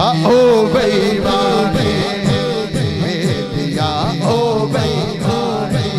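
Man singing a naat into a microphone with an ornamented, wavering vocal line, over a steady low held tone.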